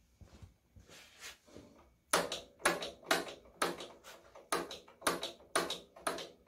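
Sharp metallic clacks with a short ring, about two a second, from the mechanism of an International LB hit-and-miss engine as it is worked by hand. Softer handling noises come first, and the clacks begin about two seconds in.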